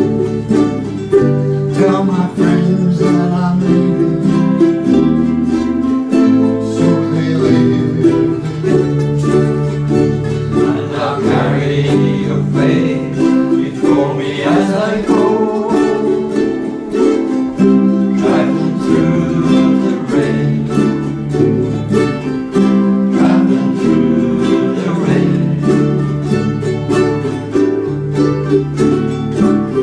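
Several ukuleles strumming chords together in a steady rhythm, the chords changing every second or two.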